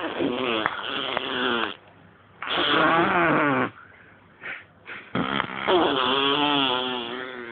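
A baby, about a year old, makes a funny voiced mouth noise three times in long, drawn-out stretches.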